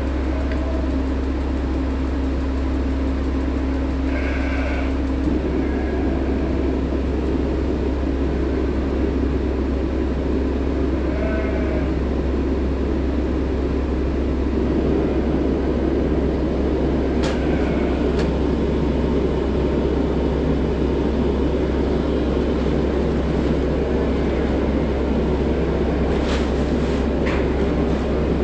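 Steady low mechanical drone of running machinery, with a faint humming tone that drops out about five seconds in.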